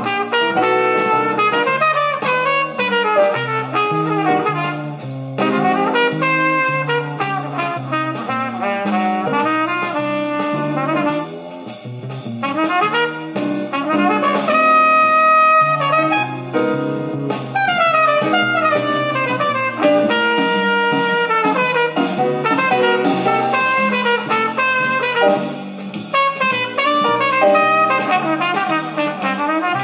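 Jazz recording with brass, a trumpet leading, played back over Philips AG9014 and AD3800AM hi-fi speakers and picked up in the room; the melody moves in quick runs and held notes, with almost no deep bass.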